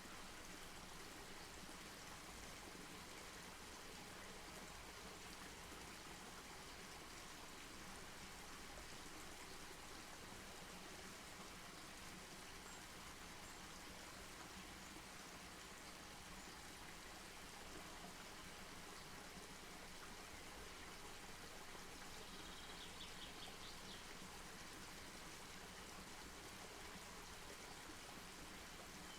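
Faint, steady rushing noise with no distinct crackles, with a brief faint high chirping a little over three quarters of the way through.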